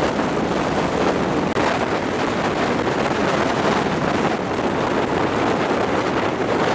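Steady rush of wind buffeting the microphone held out of a moving passenger train's window, over the train's running noise on the rails.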